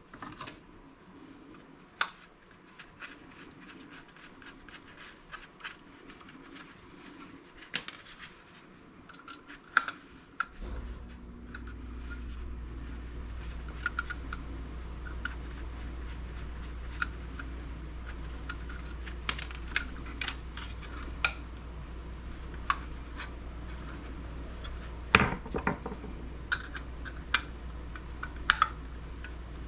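Scattered small clicks, clinks and scrapes of screwdriver parts and small metal and plastic computer parts being handled during hand disassembly. A steady low hum comes on about ten seconds in.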